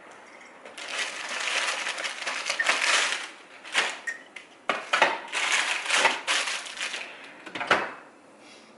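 Packaging rustling and crinkling as items are handled and rummaged through in irregular bursts, with a few light knocks.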